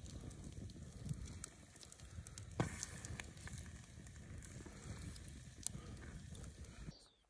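Wood fire crackling steadily in a fire pit, with scattered small pops and one sharp loud crack about two and a half seconds in.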